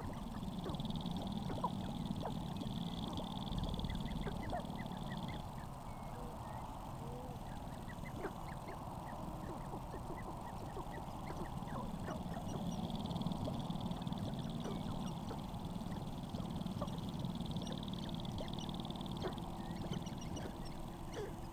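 Sharp-tailed grouse displaying on a lek: many short calls from several birds overlap throughout, with a steadier high buzz that comes and goes in stretches of a few seconds.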